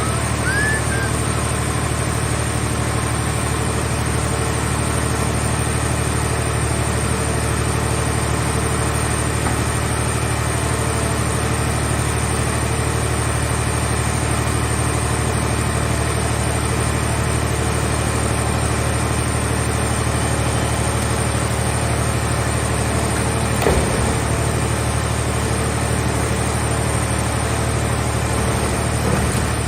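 Engine of a scrap-car baler running steadily at constant speed, a low even hum. A single short knock comes near the end.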